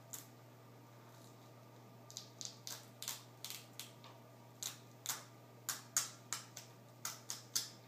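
Adhesive tape being peeled off a laptop's display-cable connector in short crackling pulls, about fifteen quick rips in irregular bunches starting about two seconds in.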